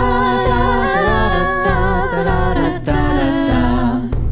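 A cappella sea shanty sung by layered voices, women and a man, on a wordless "da da da" refrain in harmony with held notes.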